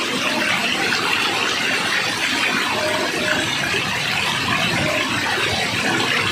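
Water rushing steadily, an even unbroken sound with no change in level.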